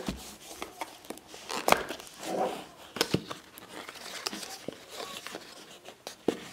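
Packing tape on a cardboard box being cut and torn open, with cardboard rustling and scattered sharp clicks and taps as the box is handled.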